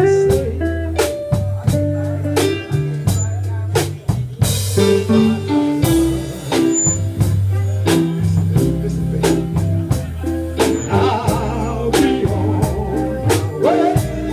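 Live blues band playing with a steady drum beat, sustained low bass notes, electric guitar and keyboard, and a man singing into a microphone at times.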